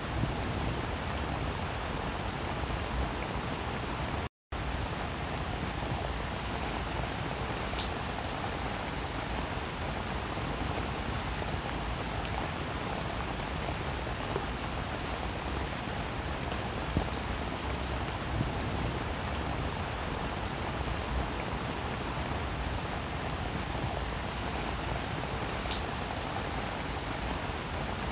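Steady rain-like hiss with scattered faint ticks, cutting out completely for a moment about four seconds in.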